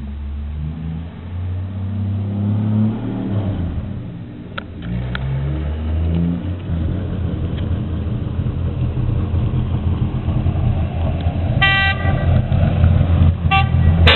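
Large-scale model semi-truck running: a low engine note steps up in pitch several times in the first few seconds, then runs steady and grows louder as the truck approaches. A horn toots about two seconds before the end and again briefly at the end.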